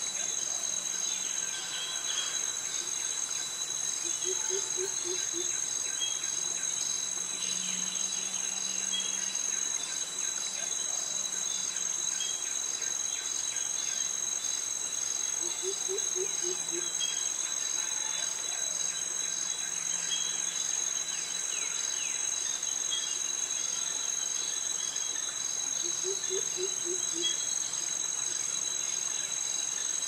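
Tropical forest chorus of cicadas and crickets: a steady high-pitched shrill with a pulsing layer woven through it. Three times, about ten seconds apart, a short run of four or five low notes sounds beneath the chorus.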